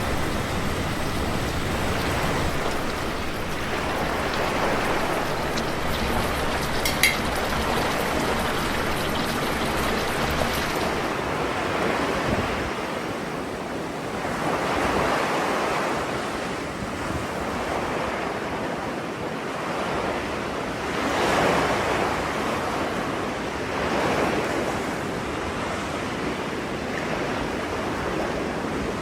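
Sea waves breaking and washing on the shore, a steady rush that swells every few seconds. A low wind rumble on the microphone drops away about twelve seconds in, and there is a single short click about seven seconds in.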